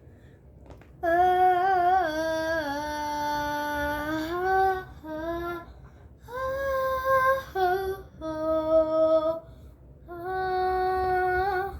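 A girl singing unaccompanied, holding long notes in several phrases with short breaks between them.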